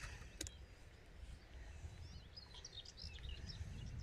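Faint outdoor ambience: small birds chirping in short calls, mostly in the second half, over a low rumble of wind on the microphone, with one sharp click about half a second in.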